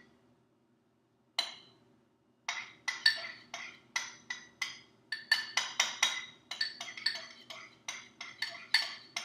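A spoon beating two raw eggs in a bowl, clinking against the bowl's side. A single tap comes about a second in, then steady beating from about two and a half seconds in, at about four clinks a second.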